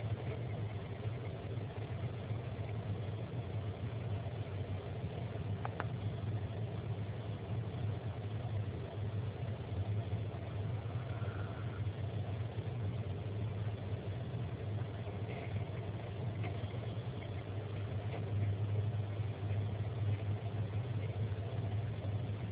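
A steady low hum with a faint even hiss over it, and a single faint click about six seconds in.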